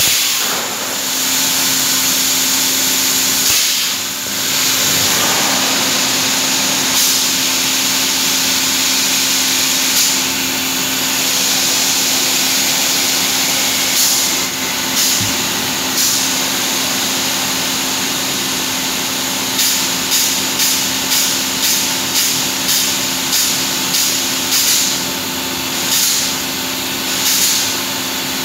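Thermocol (expanded polystyrene) factory machinery running with a steady hum and constant hiss. Short hissing bursts come every few seconds, then a quick run of them, about two a second, in the last third, the sound of steam or air being let off.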